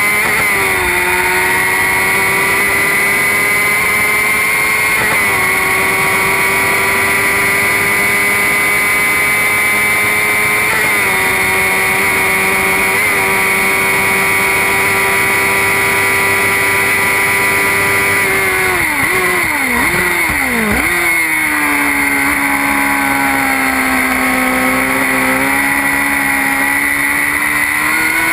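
Formula Predator single-seater race car's engine, heard onboard, running at high, nearly steady revs down a straight with small steps in pitch around 5 and 11 seconds in. About 19 seconds in the pitch drops and jumps several times in quick succession, downshifts with throttle blips under braking. It then settles at lower revs and climbs again near the end.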